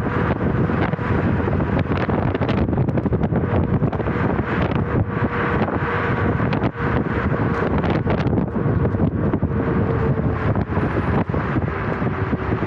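Wind buffeting the microphone while moving along a road at traffic speed: a loud rushing with frequent flapping gusts, over a faint steady hum from the vehicle.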